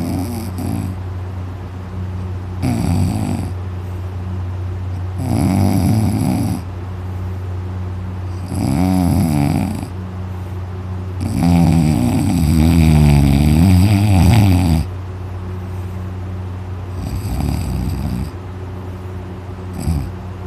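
Heavy, loud snoring from a sleeping young man: about seven snores, one every two to three seconds, each with a wavering pitch. The longest and loudest lasts over three seconds a little past halfway through.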